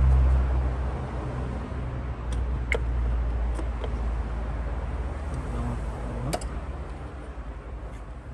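A low vehicle engine rumble that fades gradually, with a few sharp light clicks, about four in all, of parts being handled.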